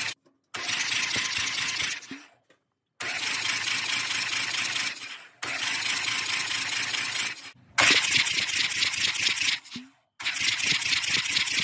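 Cummins 6AT engine being cranked over by its starter motor with a compression gauge fitted, in about five bursts of roughly two seconds each that start suddenly and wind down; the loudest burst comes near the middle.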